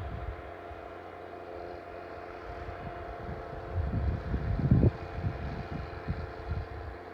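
Snowcat's diesel engine running steadily, with wind buffeting the microphone, strongest about four to five seconds in.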